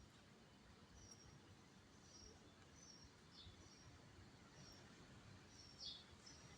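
Near silence with faint, short high chirps, like small birds, repeating every second or so, one a little louder near the end.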